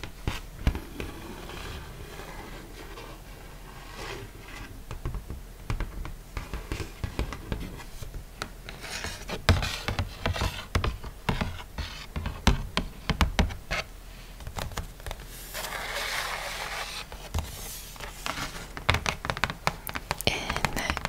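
Long fingernails tapping and scratching on a glossy card, close to a microphone, in irregular taps with longer scratchy strokes in the middle.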